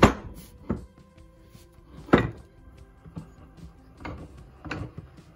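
A board being handled on a wooden workbench: six or so irregular wooden knocks, the loudest right at the start and about two seconds in. Soft background music runs underneath.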